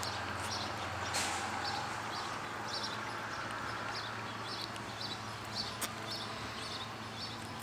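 A small bird chirping, short high chirps about twice a second, over a steady low hum.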